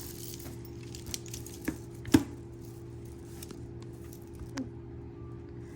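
Costume jewelry being handled: a few scattered light clicks and clinks of small metal and bead pieces knocking together, the loudest about two seconds in, over a steady low hum.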